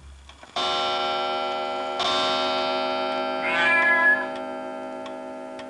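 A sustained electronic chord sounds about half a second in and is struck again at two seconds, then slowly fades. Over it a cat meows once, briefly, about three and a half seconds in, and a faint clock-like ticking runs through the second half.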